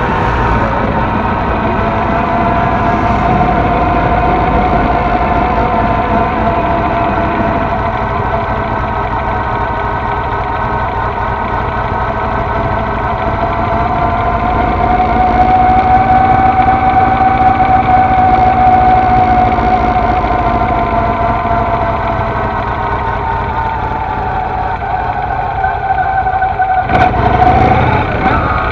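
Honda Shadow's V-twin engine running steadily while riding, heard from a camera at the front of the bike. The engine note rises a little in pitch around the middle and settles again, with a sudden change just before the end.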